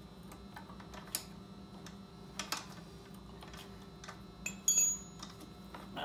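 Faint, scattered light metallic clicks from hands and tools working on a minibike's drive chain and tensioner while the chain is being slackened, with a brief ringing clink near the end, over a steady low hum.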